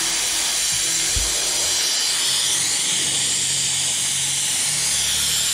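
Compressed-air blow gun hissing steadily, blasting aerosol rust converter in behind the roof's sheet metal.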